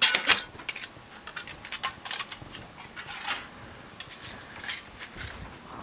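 Cut pieces of sheet-steel roof beam being gathered by hand: irregular metallic clinks, clatters and scrapes, with a loud burst of clatter at the start.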